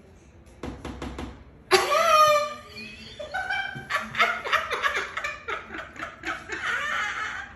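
Laughter: a loud, wavering high cry just under two seconds in, then a run of rapid cackling.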